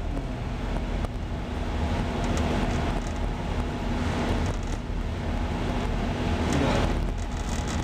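Steady drone of an anchor handling vessel's engines, a constant low hum with a faint steady tone, under a rushing wash of wind and sea that swells a couple of times.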